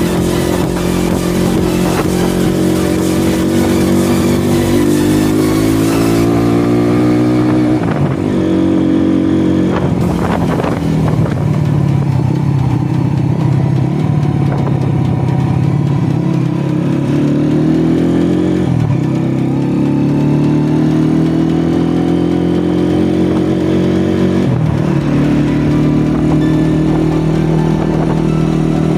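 Motorcycle engine pulling under the rider, its note climbing steadily through each gear and dropping sharply at three gear changes, then holding steady near the end.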